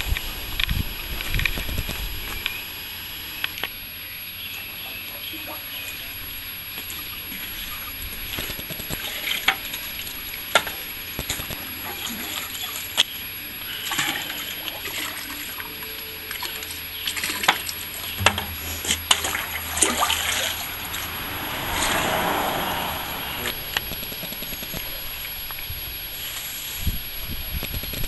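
Clay slurry sloshing and splashing as it is scooped and poured from a bucket, with scattered knocks and clicks. A longer pour swells about three quarters of the way through.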